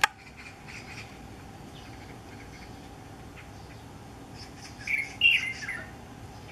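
Chinese bulbul (light-vented bulbul) singing one short phrase of several quick notes about five seconds in, ending in downward slides; the uploader wonders whether the singing is courtship. A single sharp click right at the start, and a few faint chirps in the first second.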